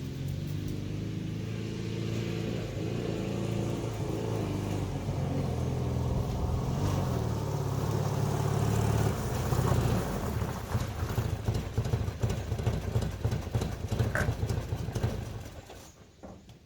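The 1971 Honda 600's two-cylinder air-cooled 600cc engine running, its pitch rising and falling, then turning choppy before it stops about a second before the end.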